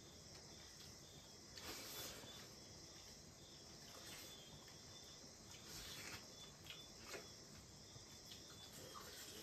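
Near silence with crickets chirping faintly and steadily in the background, and a few soft clicks and taps of fingers and food on metal plates.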